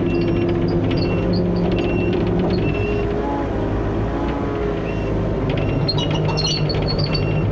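John Deere excavator's diesel engine running steadily under hydraulic load, with the hydraulic whine shifting in pitch as the arm and forks are worked. Short high squeaks or clinks come in near the end.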